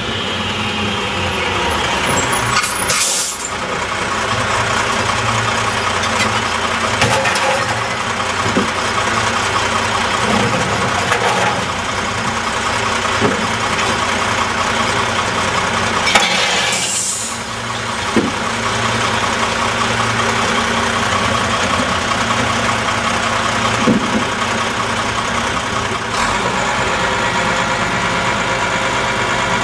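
Dempster Recycle One recycling truck on a WhiteGMC Xpeditor chassis, its diesel engine idling steadily. Its air brakes hiss twice, about three seconds in and again about seventeen seconds in. Short clatters come now and then as recyclables are tossed into its compartments.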